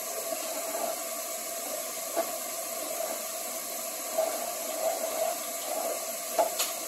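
A spoon stirring rice and milk in a large nonstick pot on the stove: wet swishing and scraping, with a sharp tap of the spoon against the pot about two seconds in and two more near the end, over a steady hiss.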